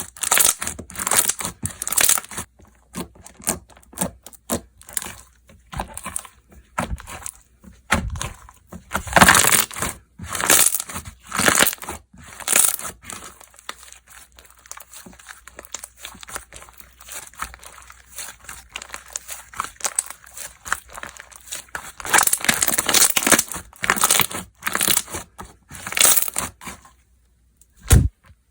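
Slime being squeezed and worked by hand, giving irregular sticky crackles and pops that come in busy clusters with a sparser stretch in the middle.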